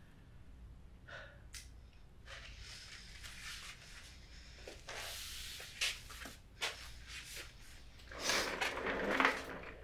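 Handling and movement sounds: scattered light knocks and clicks, a brief rustle about halfway through, then a louder rustling and scraping lasting about a second near the end, like things being moved or a cupboard or drawer being handled.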